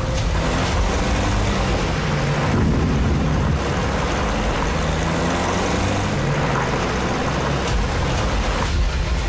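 A convoy of pickup trucks driving over rough dirt ground, with the engines running and the tyres making a steady noise.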